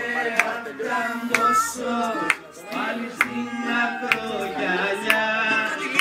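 Dance music with a singing voice and a steady beat struck about once a second.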